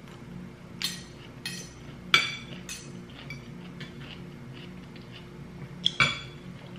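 Metal spoon and fork clinking against a ceramic dinner plate while eating: several short clinks, the loudest about two seconds in and a quick pair near the end.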